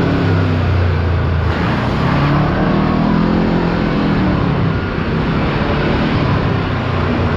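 Kawasaki Teryx KRX4 1000 side-by-side's engine running under way on a dirt trail, its pitch rising and falling as the throttle is worked, over a steady rushing noise.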